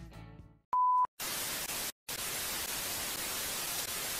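A short, steady 1 kHz beep, then a steady hiss of TV-static sound effect with a brief dropout about two seconds in.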